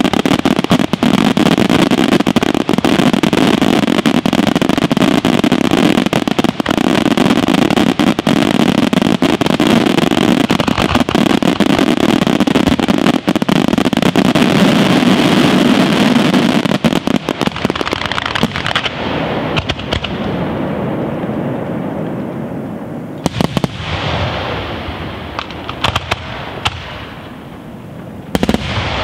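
Aerial fireworks display: a dense, continuous barrage of shell bursts and crackle for roughly the first seventeen seconds, which then thins out, leaving a few scattered single bangs near the end.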